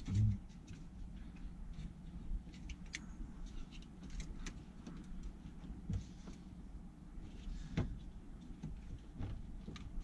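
Scattered faint clicks and light rattles of plastic interior door trim as the Fiat Scudo's inside door handle is worked free of the door card, over a low steady hum.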